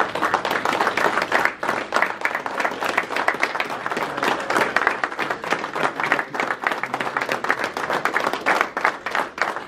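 A small audience of about a dozen people applauding, many hands clapping continuously.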